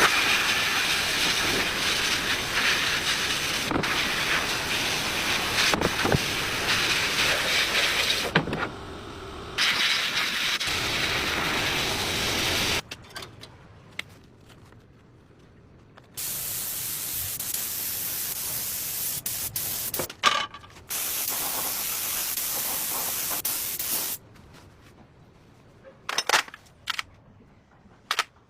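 Hissing spray in long bursts: one of about twelve seconds with a brief dip, then after a pause two shorter bursts of about four and three seconds, with a few sharp clicks in between and near the end.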